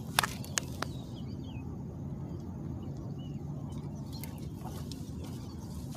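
Outdoor lakeside ambience: three sharp clicks in the first second, then faint short bird chirps now and then over a steady low rumble.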